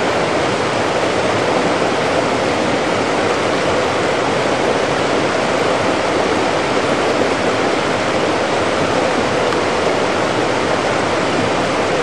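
Fast-flowing mountain creek rushing steadily, a constant loud rush of water with no let-up.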